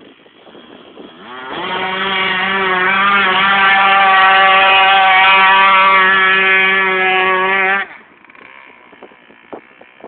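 Dirt bike engine held at high revs as it closes in. The sound builds over about a second, holds a steady pitch, then drops away suddenly about three-quarters of the way through.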